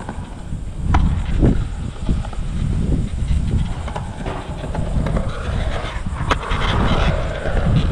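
Skateboard wheels rolling on a concrete skatepark surface, with a few sharp clacks. The rolling grows louder about six seconds in as the board passes close by. A low rumble runs underneath throughout.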